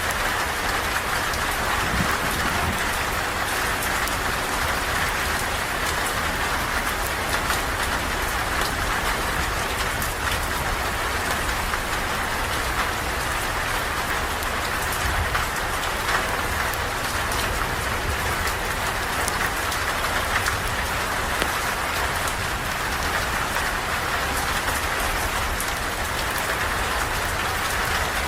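Steady rain falling, an even rushing hiss with scattered sharp ticks of drops landing.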